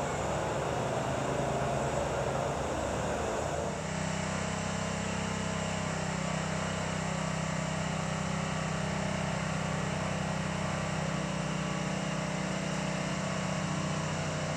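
A steady low droning hum that changes character abruptly about four seconds in, then holds steady.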